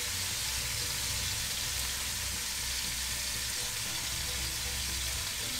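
Pork fillet and curry paste sizzling steadily in hot peanut oil in a cast-iron Dutch oven, searing at high heat, with a low steady hum underneath.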